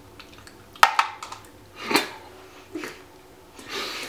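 A few short, sudden mouth noises and clicks from people chewing and reacting to jelly beans. The sharpest comes about a second in, another about two seconds in, and there is a breathy puff near the end.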